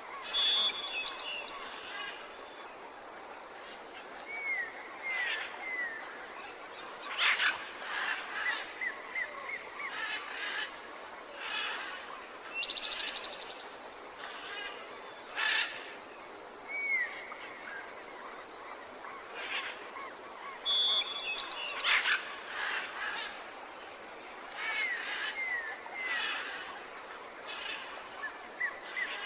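Tropical forest ambience: several birds calling over a steady background hiss, with short downward chirps in twos and threes, a brief rapid trill, and a few loud sharp calls.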